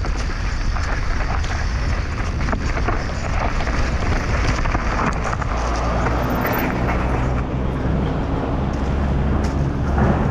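Mountain bike riding fast down a bike-park trail: wind buffeting the microphone over the steady rush of tyres on the trail, with frequent knocks and rattles as the bike goes over bumps.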